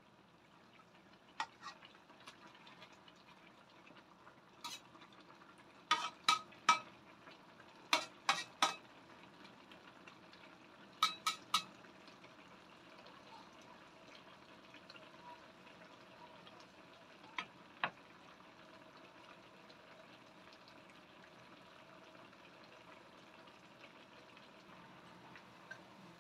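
Metal spatula stirring and clinking against a stainless steel wok of simmering bitter melon, with sharp clicks that come mostly in groups of three about six, eight and eleven seconds in, over a faint steady hiss.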